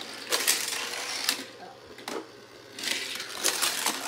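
Die-cast Disney Pixar Cars toy cars clicking and clattering against a plastic toy race track as they are set down and moved by hand, in a few separate bursts with a quieter gap in the middle.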